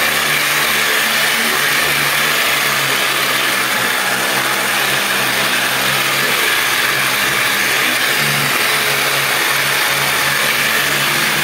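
XUI electric orbital sander running steadily at full speed, its pad working worn sandpaper against a board, with a hum under a bright hiss. The sander is running again after its armature was realigned and its bushing replaced.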